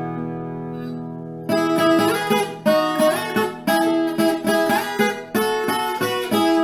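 Background music on acoustic guitar: a held chord rings and fades, then picked notes follow from about a second and a half in.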